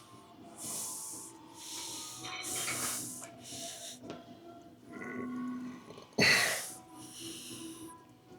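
A man breathing hard with forceful, hissing exhales, about one a second, the loudest a little past six seconds in: the heavy breathing of a lifter straining through a set.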